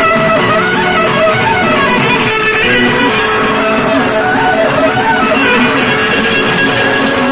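Loud music with a winding melody line over a dense, steady accompaniment.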